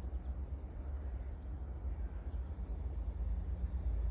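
Class 57 diesel locomotive approaching in the distance: a low rumble, with a steady engine drone coming in about three seconds in and growing louder.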